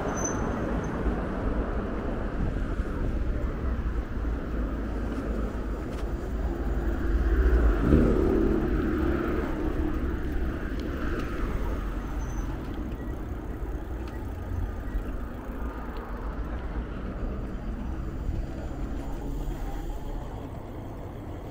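Steady rumble of an electric bike being ridden: wind on the microphone and tyre noise on the path, swelling briefly about eight seconds in.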